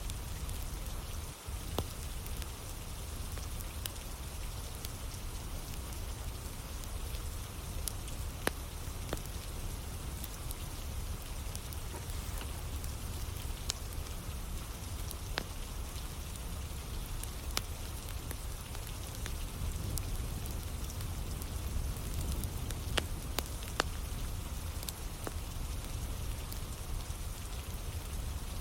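Steady rain falling, with a wood fire crackling and giving occasional sharp pops.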